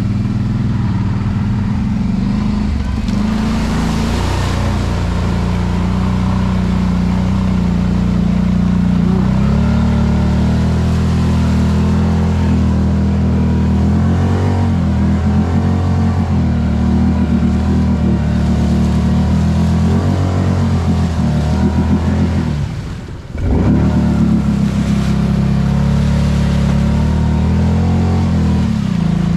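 ATV engine running, its pitch shifting up and down with the throttle. The engine noise briefly drops away about three-quarters of the way through.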